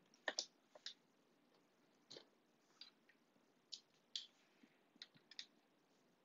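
Near silence, broken by about a dozen faint, irregular clicks.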